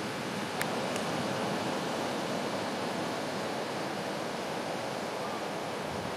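Steady rushing wash of sea surf breaking along the shore, with two faint brief clicks about half a second in.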